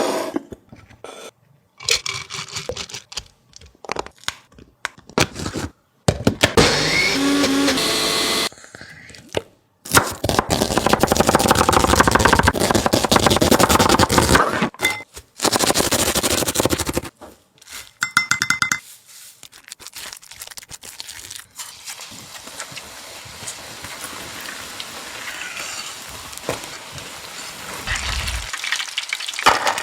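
Kitchen sounds of pakodi being made, cut together in short pieces: clinks and knocks of utensils and several stretches of steady hiss, the longest running for about seven seconds in the middle.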